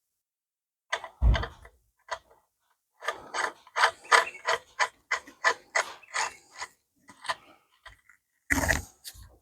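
Hand-tool work on a Ford Model T rear wheel hub as it is fastened: a heavy knock, then a quick run of clicks at about three or four a second, then another knock near the end.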